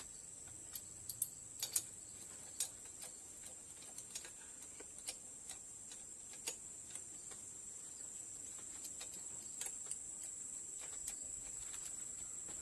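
Scattered light clicks and ticks, irregularly spaced and densest in the first two seconds, over a steady high-pitched hum.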